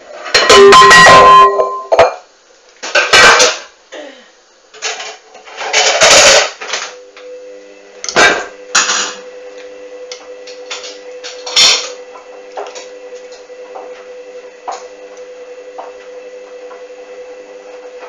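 Hoover A59 washing machine in its main wash: a run of loud, irregular clattering knocks, the loudest right at the start, then a steady motor whine with faint regular ticking that stops near the end.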